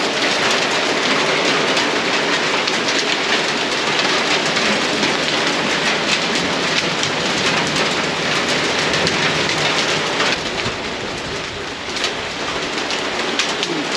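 Heavy thunderstorm downpour, a dense patter of sharp drop impacts on hard surfaces. It eases a little about ten seconds in, then picks up again near the end.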